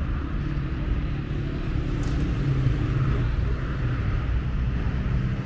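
City street ambience: a steady low traffic rumble from passing vehicles.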